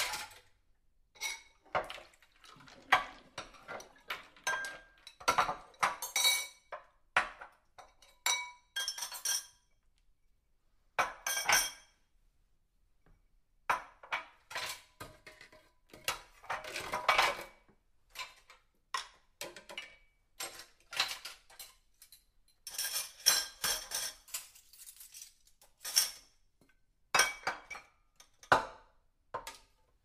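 Dishes and cutlery being washed by hand, clinking and knocking against each other in irregular clusters, some strikes with a short ring, with a brief lull about a third of the way in.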